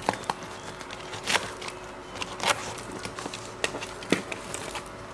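Cardboard shipping box being opened by hand: packing tape and cardboard flaps crinkling, with a few sharp clicks and taps scattered through.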